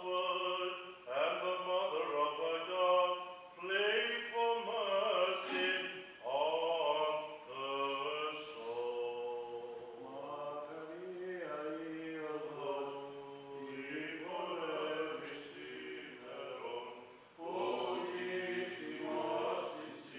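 A man's voice chanting a Greek Orthodox funeral prayer in long, gliding, held notes, with a few short breaths between phrases.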